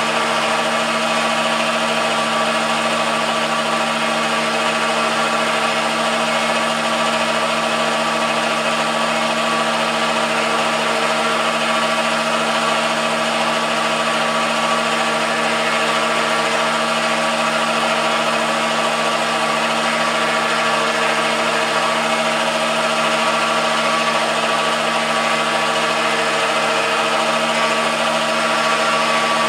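MDF rose engine lathe running through a cutting revolution: a steady motor hum and whine with several fixed tones that do not change.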